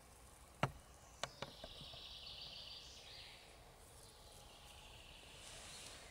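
Faint outdoor ambience: a soft high hiss with a few sharp clicks between about half a second and two seconds in, the first one the loudest.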